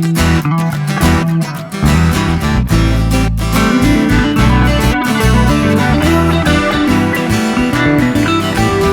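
Background music led by guitar with a bass line and a steady beat.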